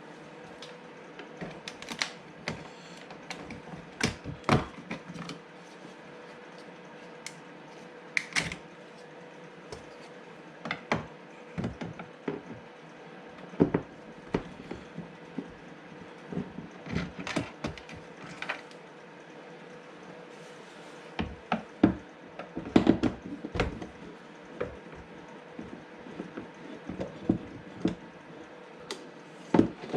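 Irregular clicks, taps and knocks of hand work on a car door: tools and plastic trim parts handled while the door panel is taken off. A faint steady hum runs underneath.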